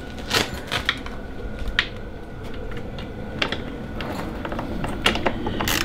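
A hand screwdriver working the underside screws of a snowmobile's front bumper. About half a dozen light, irregular clicks and scrapes of the tool on metal and plastic.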